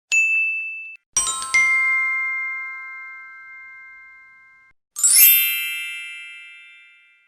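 Three separate stock sound effects of the kind used for animated captions. First a short single ding, then about a second in a bell-like chime of several notes that rings out for a few seconds, then about five seconds in a sparkling, glittery chime that fades away.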